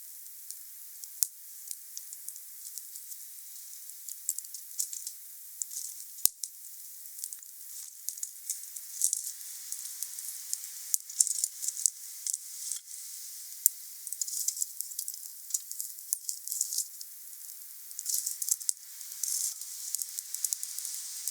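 Wood fire burning: a steady hiss with many sharp crackles and pops. One pop about six seconds in is louder than the rest, and the crackling grows busier in the second half.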